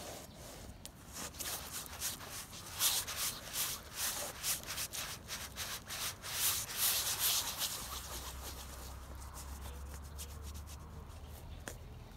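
A bare hand rubbing paint across a stretched canvas in a quick run of short scrubbing strokes, loudest in the middle, then dropping to a faint rustle after about eight seconds.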